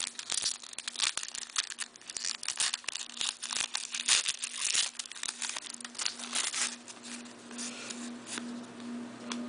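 A foil hockey-card pack being torn open and crinkled by hand: a run of crackling, rustling wrapper noise that thins out toward the end.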